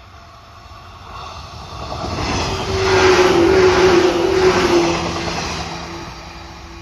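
A train passing close by on the Sanyo Main Line: the rumble and clatter of its wheels on the rails builds, peaks about three seconds in and fades away again, with a steady hum through the loudest part.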